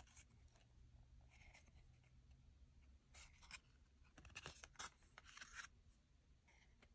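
Faint swishes of trading cards sliding against one another in the hands as the stack is shuffled through: a few short brushes, busier in the second half.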